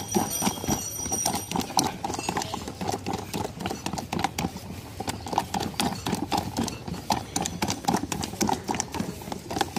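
A stick stirring aloe vera juice in a plastic jug, knocking against the jug's sides in a quick, steady rhythm of clacks.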